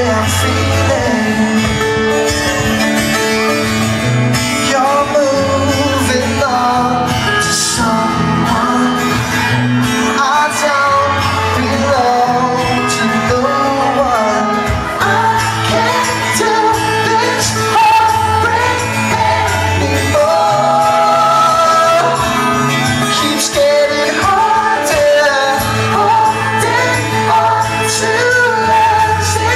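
Live pop-rock band playing a song: male lead vocal over guitar, bass and drums, loud and continuous, in a large hall.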